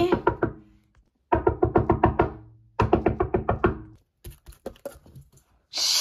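Quick runs of short percussive taps, about nine a second, in three bursts of roughly a second each with a few scattered taps after: a cartoon-style scurrying footsteps sound effect for a character sneaking away.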